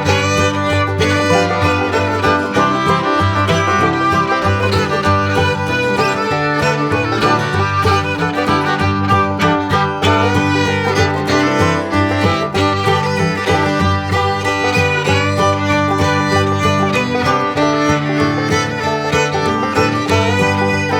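Background music: a lively country-style tune led by a fiddle, playing steadily throughout.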